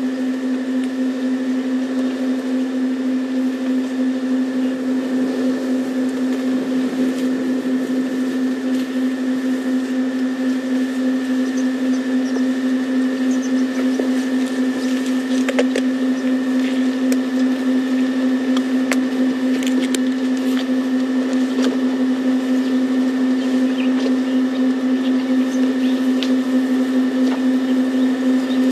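A steady, unchanging mechanical hum: a loud low drone with a fainter high whine above it, with a few faint ticks.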